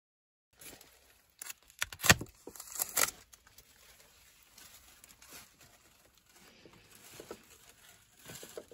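Two or three sharp knocks about two to three seconds in, then faint rustling and light tapping, with a few more small knocks near the end.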